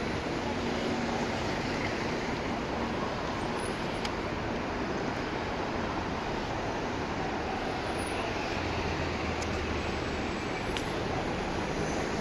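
Steady noise of busy city road traffic, with cars and double-decker buses driving past.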